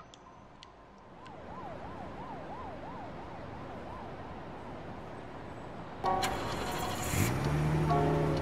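A siren sounding in a quick up-and-down sweep, about three cycles a second, over a faint background hiss. About six seconds in, a louder sound with several held tones starts abruptly.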